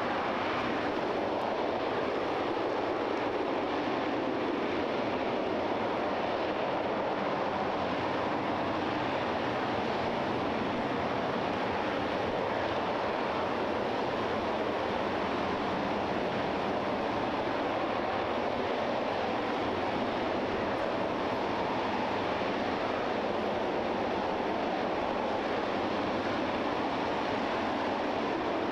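RS-25 liquid-hydrogen/liquid-oxygen rocket engine firing on a test stand: a steady rushing noise that holds an even level throughout.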